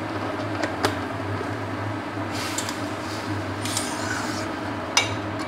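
Long metal spatula stirring and scraping mango pieces in an aluminium kadai, with a sharp metal clink about a second in and another near the end, over a steady low hum.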